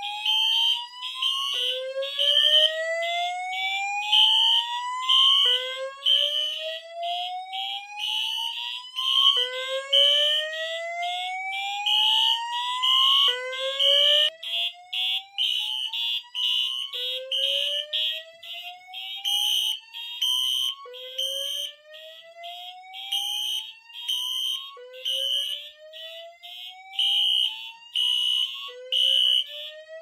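Fire alarm notification appliances sounding together in alarm: a slow-whoop tone rises in pitch and restarts about every four seconds, over horns pulsing in their temporal and march-time patterns. It all cuts off at the very end as the signals are silenced.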